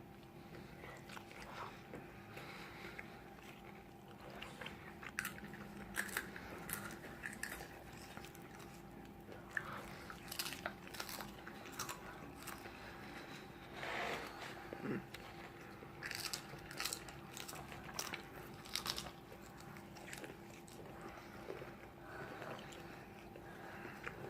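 Close-up biting and chewing of crunchy fried food, with sharp crunches coming in irregular clusters.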